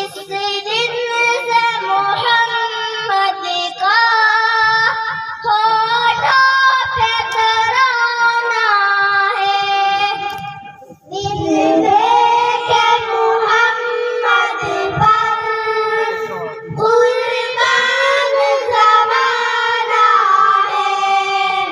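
Group of girls singing a naat together into stage microphones, a melodic devotional chant with one short break about halfway through.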